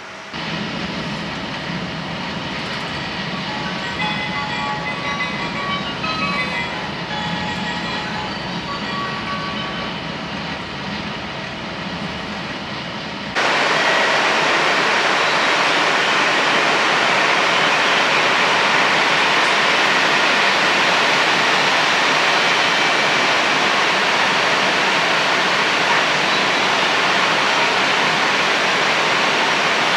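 Inside an E6 series shinkansen car moving slowly through a station: a low rumble with faint short tones above it. About 13 seconds in it cuts to a louder, steady rushing hiss on the platform beside the stopped train.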